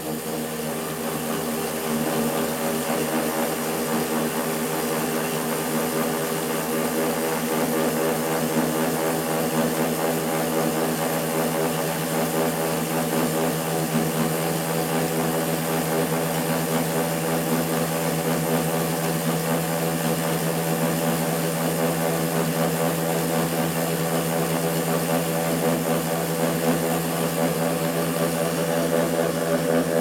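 A 2-inch, 1.7-pound permanent magnet spinning on a shaft in two bearings, driven by a pulse coil, running at about 4,900 RPM with a steady pitched whir. It revs up a little during the first couple of seconds, then holds.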